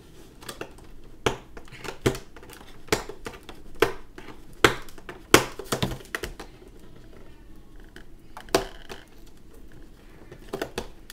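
A boxed action figure's cardboard and plastic packaging being handled and opened: irregular sharp clicks, crackles and crinkles, the loudest about five seconds in.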